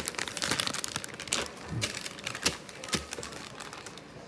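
Packaging being handled, crinkling and rustling, with many small clicks and snaps.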